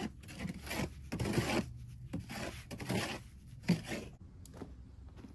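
A run of rough scraping strokes against a hard surface, coming irregularly about one a second, thinning out about four seconds in.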